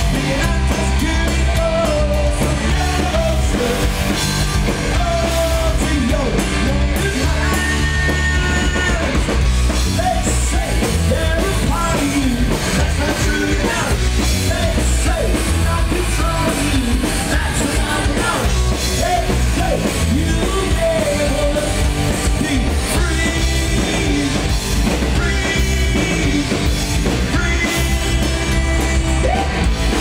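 Punk rock band playing live on electric guitars, bass and drums, with a man singing into a microphone over them.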